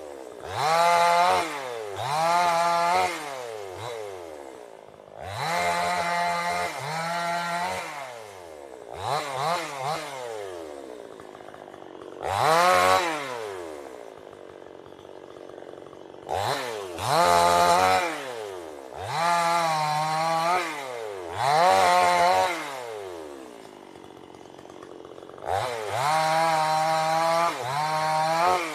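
Two-stroke chainsaw engine being throttled repeatedly. The pitch rises sharply to high revs and falls back toward idle about ten times, with a few longer bursts held at high speed.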